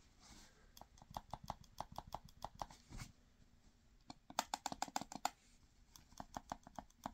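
Xbox Elite Series 2 controller trigger pulled and released over and over, each stroke giving a faint plastic click, in three quick runs. The shock-absorbing tape on the trigger has been taken off to cure sticking, so the trigger moves freely but clicks louder.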